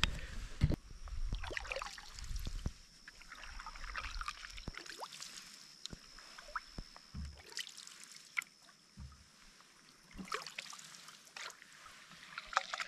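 Canoe paddle strokes in calm, shallow river water: a splash and trickle of drips with each stroke, coming every two to three seconds, with a few small clicks between them.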